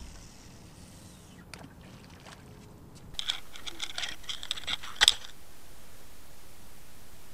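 Faint open-air sound with a couple of light clicks, then, about three seconds in, the sound of an underwater camera: a steady hiss with a cluster of clicks and knocks as it comes down onto the gravel riverbed. The loudest knock is about five seconds in, and after it only the hiss is left.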